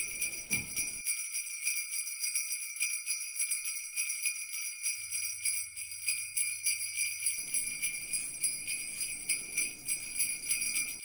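Background music of sleigh bells (jingle bells) shaken in a fast, even rhythm. A faint low hum joins for a couple of seconds midway.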